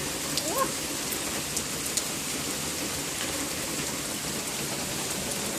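Steady rain falling, with a few sharp ticks of drops striking nearby surfaces.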